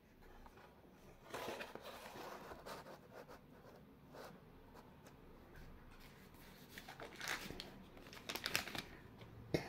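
Cardboard packaging handled by hand: a knife box turned over and slid against a cardboard shipping box, with irregular bursts of rustling and scraping and a sharp tap near the end.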